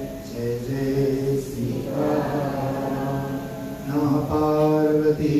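A man's voice chanting a Hindu mantra in long held notes, moving from one pitch to the next every second or two.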